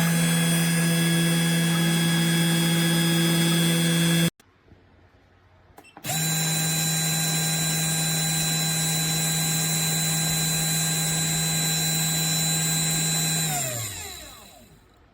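Spindle motor of a Genmitsu 3018-PROVer desktop CNC mill running at a steady speed with a high whine. It cuts off suddenly about four seconds in, starts again about two seconds later, then near the end winds down with a falling pitch as the spindle coasts to a stop.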